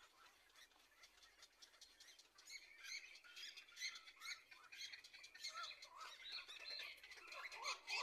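Heron chick in its nest giving rapid, repeated short squawking chirps. They start about two and a half seconds in and grow louder near the end.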